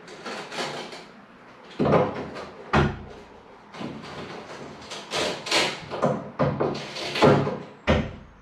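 Old wooden window glazing being worked loose and pulled from its frame: a series of wooden knocks, bangs and scrapes, with heavy thumps about two, three and eight seconds in.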